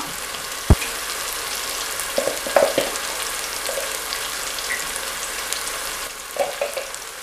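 Onion-tomato masala frying with its spice powders in an aluminium pressure cooker, sizzling steadily. A sharp click comes about a second in, and light clattering twice, near the middle and near the end.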